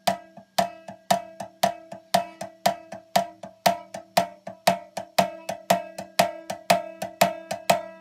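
Rubber mallet tapping a banjo's loose fifth-string tuner peg into its friction-fit hole in the neck: gentle taps about twice a second, with lighter ones between. Each tap sets the banjo ringing with a steady pitched tone that carries between taps.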